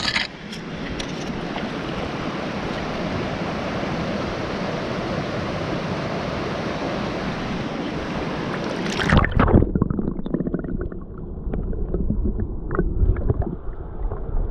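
Steady rush of a small stream's flowing water. About nine seconds in, the sound turns muffled and dull, with low bumps and knocks.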